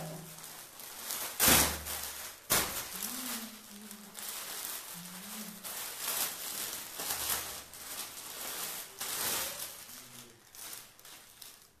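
Rustling and crinkling as a folded cotton gown is unwrapped and shaken out by hand, with two louder swishes about a second and a half and two and a half seconds in.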